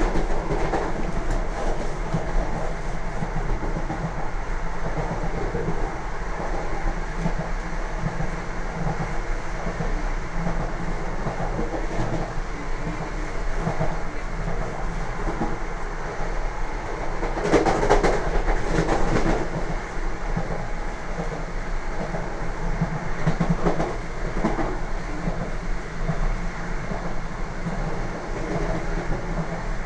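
Lastochka (Siemens Desiro RUS) electric train running at speed, its wheels rolling and clacking over the rails in a steady noise. It gets louder for a couple of seconds just past the middle and again briefly a little later.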